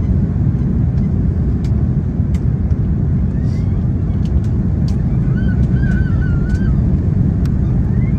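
Steady cabin roar of an Airbus A330-200 on final approach with its flaps extended: engine and airflow noise, heaviest in the low end. About five seconds in, a faint high wavering squeal rises over it, along with a few light clicks.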